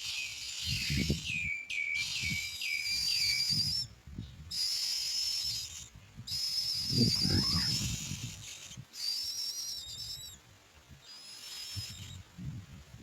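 Myna nestlings begging for food: repeated shrill, hissing calls, each held a second or so with short gaps, and a quick run of about five falling chirps about two seconds in.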